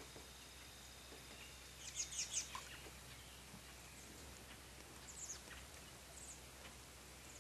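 Small songbirds chirping faintly, with a quick cluster of high chirps about two seconds in and a few single chirps later, over a low steady hiss of woodland ambience.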